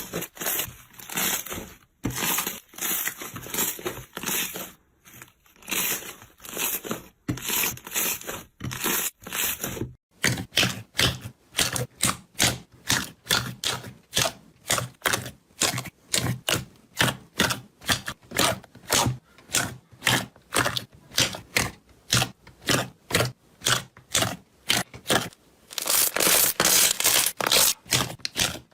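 Slime being squeezed and pressed by hand, giving crackling, tearing sounds in irregular bursts; about ten seconds in it changes to a rapid run of short crackling pops, two to three a second, and near the end to a denser crackle.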